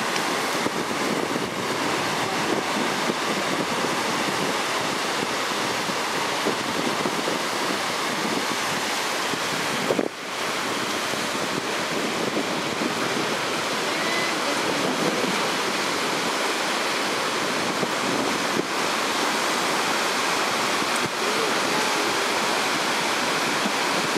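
Steady rush of ocean surf breaking on the rocky shore, mixed with wind buffeting the microphone; the noise drops out briefly about ten seconds in.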